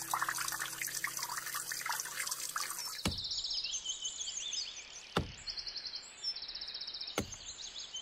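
Sound effects: a dense irregular patter of small ticks that stops suddenly about three seconds in, giving way to birds chirping in short repeated trills, with three sharp knocks about two seconds apart.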